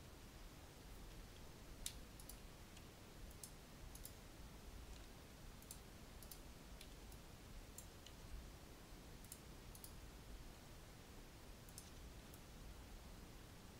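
Faint, scattered clicks of a computer mouse and keyboard, a dozen or so at irregular intervals, over near-silent room tone.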